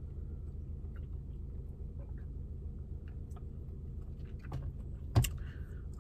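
Faint mouth and handling sounds as a person drinks from a plastic soda bottle and eats, over a steady low hum. A sharp click about five seconds in is the loudest sound.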